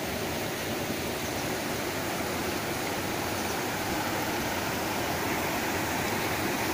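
Water rushing over rocks in a shallow stream, a steady noise that does not change.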